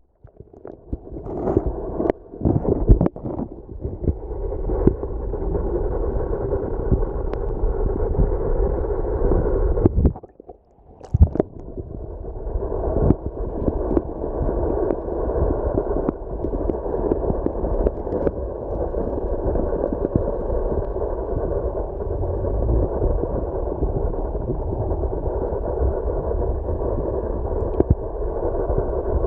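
Muffled underwater noise picked up by a submerged camera: a steady dull rushing with no high sounds. A few knocks come near the start, and the sound drops out briefly about ten seconds in.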